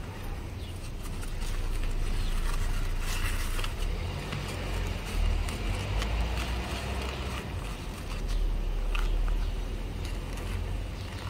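Paper and a passport being handled at a wooden table: faint rustles and light taps as a paper sleeve is folded and pressed into the passport. Under them runs a steady low rumble that swells twice.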